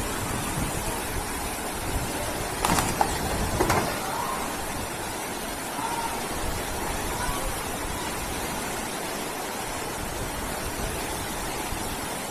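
Fast floodwater rushing down a street as a steady, loud roar of churning water. There are two short, louder noises about three and four seconds in.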